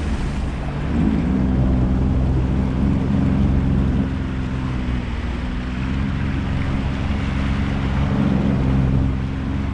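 Jet ski engine running steadily while under way, with water rushing past the hull.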